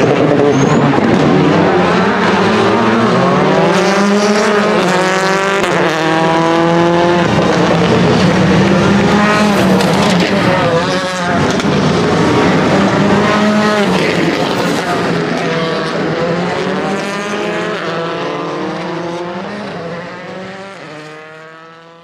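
Citroen C3 rally car's turbocharged four-cylinder engine revving hard through a hairpin and accelerating away. Its pitch climbs and drops again and again with quick gear changes, and the sound fades away near the end.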